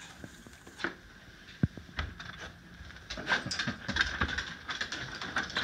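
A dog's claws tapping and scratching lightly and irregularly on a hardwood floor as its paws reach under a closed door, with one louder knock about one and a half seconds in.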